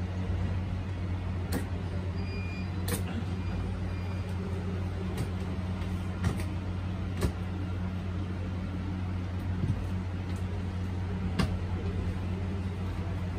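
A steady low mechanical hum, with a few sharp clicks and taps as a wooden picture frame is handled and fitted on a workbench.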